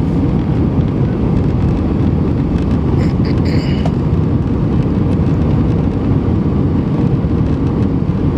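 Steady, loud rumble inside the cabin of an Airbus A320, the noise of its engines and the air rushing past the fuselage, with a short higher sound about three seconds in.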